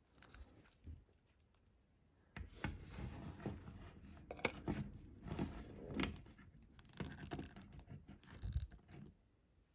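Hard plastic parts of a NECA Last Ronin action figure being handled and fitted, making small irregular clicks and scrapes. There are a few faint clicks at first, then a busier run of scraping and clicking from about two seconds in until near the end.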